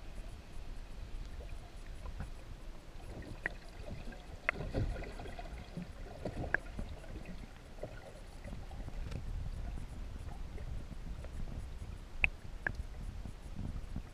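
Muffled underwater rumble heard through a GoPro's waterproof housing, with a few sharp clicks and knocks scattered through it, the sharpest about twelve seconds in.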